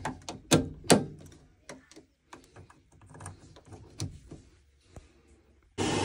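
Scattered plastic-and-metal clicks and knocks of a new sensor being pushed and clipped into a Worcester Bosch combi boiler's pipework. Near the end a steady rushing noise starts abruptly: the boiler running, fired up.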